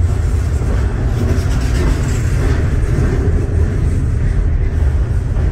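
Loud, steady low rumble of a rail yard beside a standing freight train, with a fainter hiss above it and no distinct knocks.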